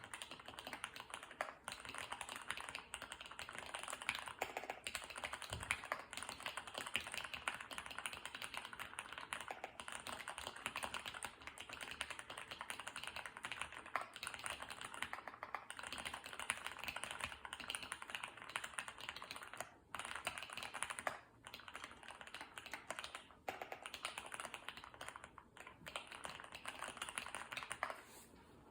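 Fast, continuous typing on a custom Orion V3 mechanical keyboard with lubed Gateron Ink Black V2 linear switches on an FR4 plate, Everglide V2 stabilizers and Leopold keycaps: a dense run of keystroke clacks with a few brief pauses.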